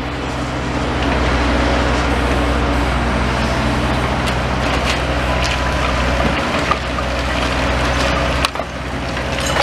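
Demolition excavator's diesel engine running steadily, with scattered knocks and crunches of debris as it pulls the building down. The engine hum dips briefly near the end.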